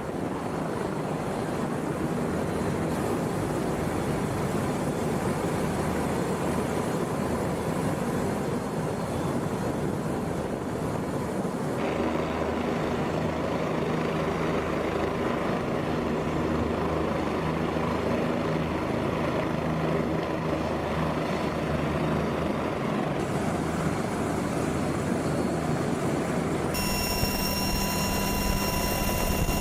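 Several OH-58D Kiowa Warrior helicopters running, a steady rotor and engine noise that shifts abruptly a few times. Near the end a steady high whine joins it.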